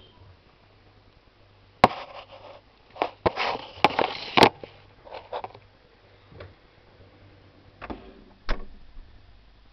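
Handling noises at a refrigerator-freezer: a sharp click about two seconds in, then a cluster of knocks and rustling, and a few more scattered knocks, over a faint low steady hum.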